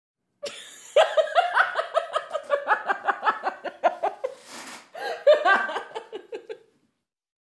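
A person laughing hard in quick repeated bursts, with a gasping breath in about halfway through, then another run of laughter that trails off.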